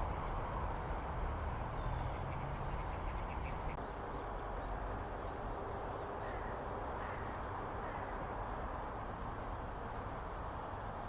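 Zitting cisticola giving a quick run of short, dry ticking notes about two seconds in, then a few faint notes, over a steady background hiss.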